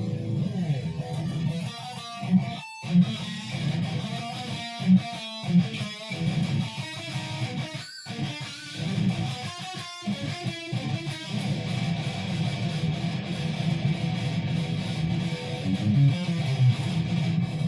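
Guitar being played, strummed chords and picked notes, broken by several short sudden stops in the first half.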